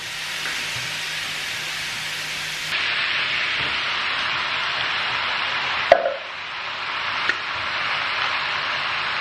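Wok of meatballs and chopped vegetables sizzling steadily as tinned chopped tomatoes are poured in, a little louder after about three seconds. A single sharp knock comes about six seconds in.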